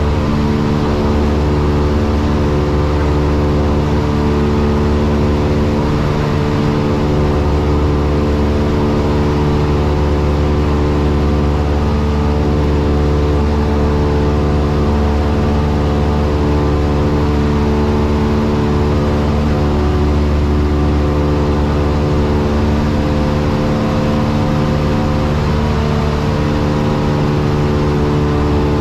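Single-engine light aircraft's piston engine and propeller running at a steady pitch in flight, heard from inside the cockpit.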